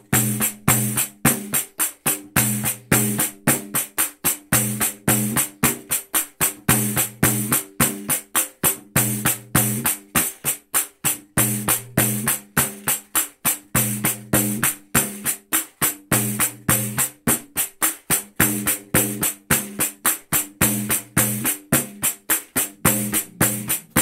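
Contemporânea pandeiro played in a slow xote groove: steady thumb and fingertip strokes, each with a jingle rattle. Bars with the head held muted alternate with bars where the head is left open and deeper thumb tones ring.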